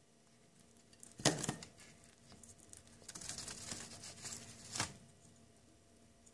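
Pet rats eating sweetcorn kernels from a bowl and moving about on newspaper: a loud crinkling rustle about a second in, then a couple of seconds of crackling and crunching that ends in a sharp rustle near five seconds.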